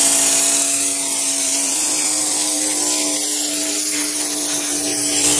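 Handheld electric foam sprayer running, its small motor whining steadily over the hiss of pre-wash foam spraying onto a car wheel. The motor pitch steps up slightly about two seconds in.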